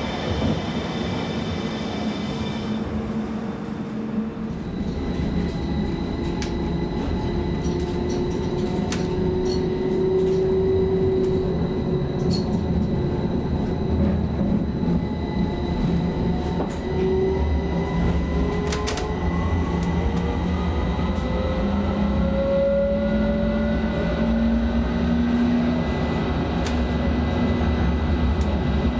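A modern low-floor electric tram heard from inside while running: a steady low rumble of the wheels on the rails with scattered sharp clicks, a constant high electric tone, and the motor whine rising slowly in pitch as the tram speeds up in the second half. The first few seconds hold a tram standing at a platform, with several steady high tones.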